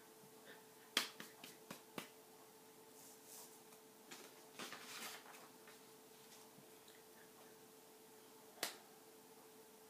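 Sharp taps of hands striking each other while signing: a quick run of five about a second in, a soft rustle in the middle and one more tap near the end, over a faint steady hum.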